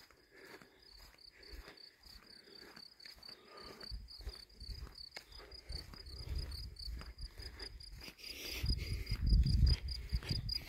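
A cricket chirping in an even, fast pulsing rhythm, growing louder toward the end, over steady footsteps along a dirt road and a low rumble near the end.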